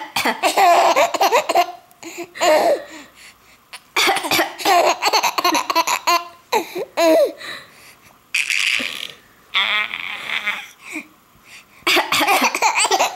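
A young child laughing in repeated bursts, with coughing mixed in, including a couple of harsh coughs about two-thirds of the way through.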